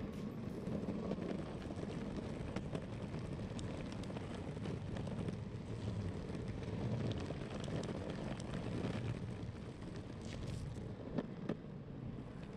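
Electric longboard rolling over a rough road: a steady low rumble from the wheels, with wind buffeting the microphone.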